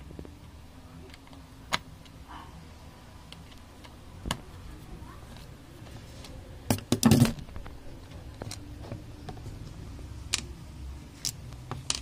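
Sharp clicks and knocks of an electric kettle being taken apart by hand: a few scattered strikes, with a quick run of louder ones about seven seconds in.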